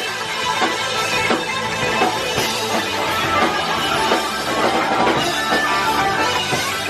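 Live rock band playing an instrumental stretch, with electric guitar and drum kit.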